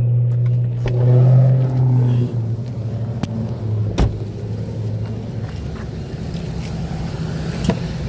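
A motor vehicle's engine running steadily, with a low drone and a couple of sharp clicks about four seconds in and near the end.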